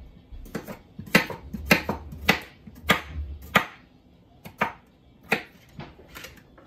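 Kitchen knife slicing a potato, the blade knocking sharply on a cutting board at about two strokes a second, fewer and further apart after about four seconds.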